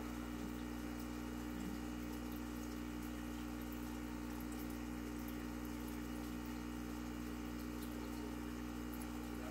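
Aquarium pump running: a steady low hum with a faint watery trickle.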